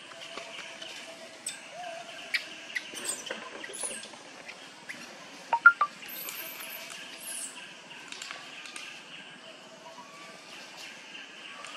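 Forest floor ambience: macaques rustling and crackling through dry leaf litter under a steady high drone. Three quick, high squeaks just past halfway are the loudest sounds, followed by a few thin, high chirps.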